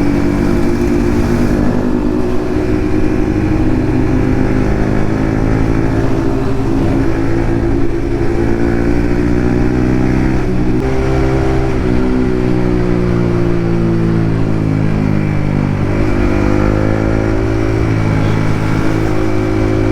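Yamaha MT-15's 155 cc single-cylinder engine with an Akrapovic exhaust, running on the move. Its note rises and falls gently as the throttle opens and closes.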